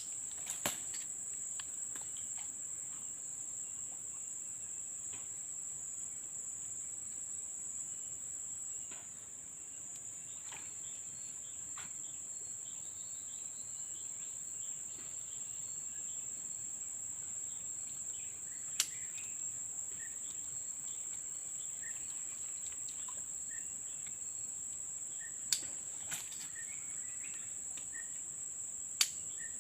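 Steady, high-pitched chorus of insects, crickets or similar, with a few sharp clicks scattered through it and faint short chirps in the second half.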